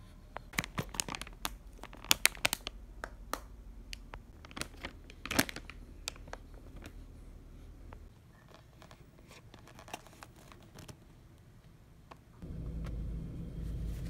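Clear plastic packaging of a shirt pack crinkling and crackling as it is handled, in a dense run of sharp crackles over the first six seconds, then fainter and sparser. About twelve seconds in it cuts to a steady low rumble.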